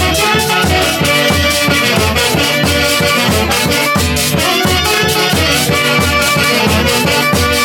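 Andean orchestra from Huancayo playing a huaylía, a fast dance tune with melody lines over a steady, quick bass beat.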